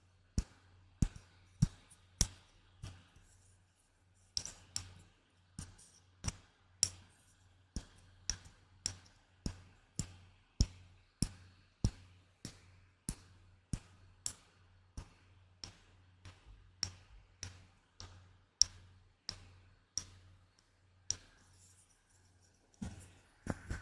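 ASMR tapping: sharp, short taps at a steady, unhurried pace of about one and a half to two a second, with a denser flurry of small sounds near the end.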